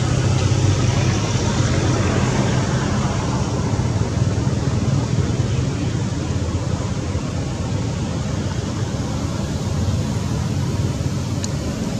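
A steady low rumble of background noise, even and unbroken, strongest at the bottom and easing slightly after the middle, with a faint click near the end.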